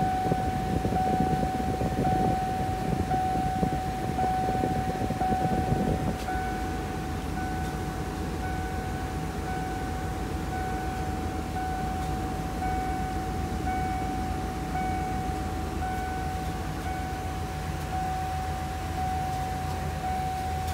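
Ford E-Series van engine idling steadily, with a constant high-pitched warning tone over it that pulses about once a second. Rustling handling noise over the first six seconds.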